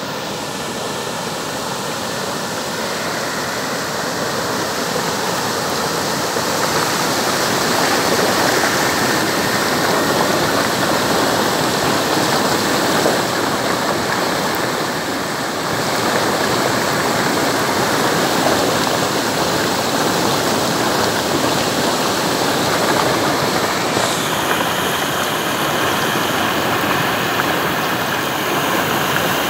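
Floodwater from a full reservoir pouring over a small dam's spillway and cascading into white water below it: a steady rush of water that grows louder over the first several seconds, then holds. The dam is overflowing after heavy rain.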